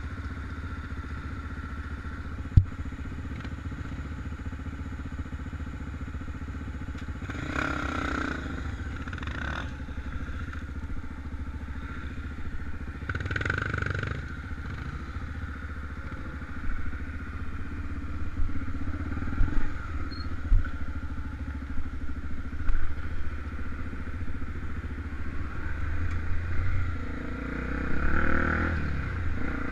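Honda XR250 Tornado enduro motorcycle's single-cylinder four-stroke engine running steadily at low revs. Sharp knocks and rattles come through, growing frequent in the second half.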